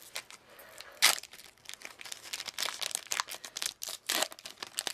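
A sticker pack's wrapper being torn open and crinkled by hand: a run of sharp crackles, with the loudest rip about a second in and another just after four seconds.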